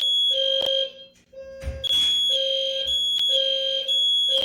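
Building fire alarm sounding in repeated pulses of about half a second with short breaks. It carries a high, piercing tone and a lower tone together, and two sharp clicks come through.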